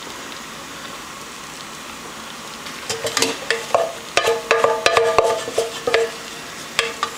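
A metal spoon clinking and scraping against a mixing bowl in a quick run of taps with short ringing, as the last of a butter mixture is knocked off it. The taps start about three seconds in and die down near the end.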